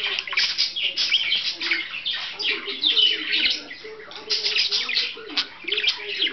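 Budgerigars warbling and chattering: a dense, continuous run of quick high chirps and twitters.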